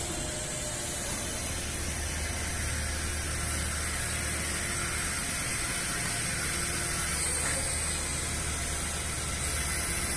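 Steady ambient hiss with a low hum underneath in an empty steel cargo hold, unchanging throughout.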